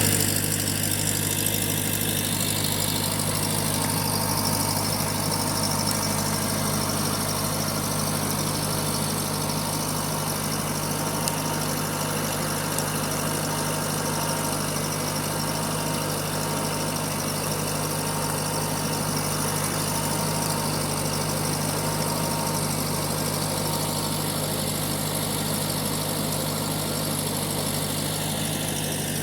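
Case 1845 skid steer engine idling steadily, holding an even speed.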